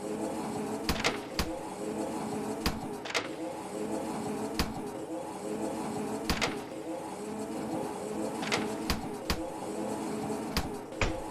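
Animated train running sound: a steady motor hum with sharp clacks at irregular intervals, like wheels passing rail joints.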